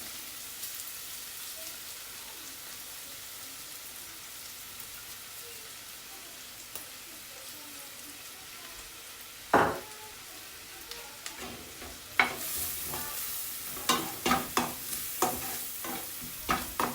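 Chopped garlic sizzling in butter in a frying pan, a steady hiss. About nine and a half seconds in there is a single knock, and from about eleven seconds a utensil scrapes and clacks against the pan as the garlic is stirred, with the sizzle growing louder.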